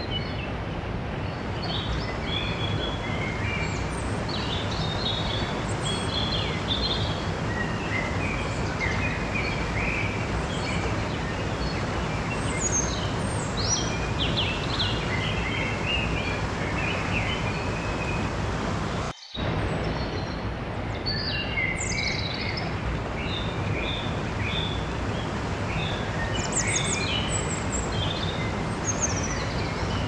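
Mountain stream rushing steadily over rocks and small cascades, with small birds chirping and twittering throughout. The sound drops out for an instant about two-thirds of the way through.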